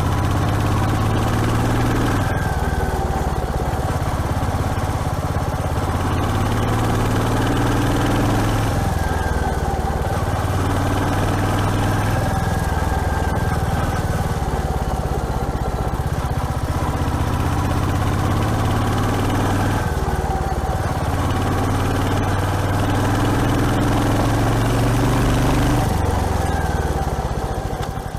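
Royal Enfield Hunter 350's single-cylinder engine running while riding, its note rising and dropping back again and again as the bike accelerates and changes gear.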